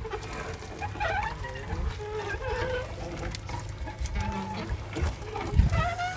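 Wet gill net being hauled over the side of a wooden outrigger boat, with water dripping off the mesh over a steady low rumble, and a single low thump about five and a half seconds in.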